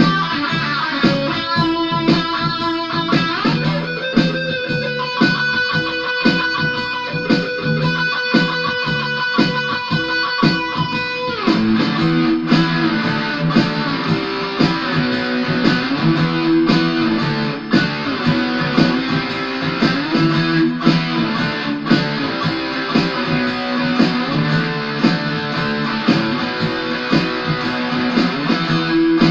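Ibanez AS73 semi-hollow electric guitar played through an amplifier in the key of E: sustained high lead notes, then about 11 seconds in a change to lower, busier riffing with a steady rhythmic pulse.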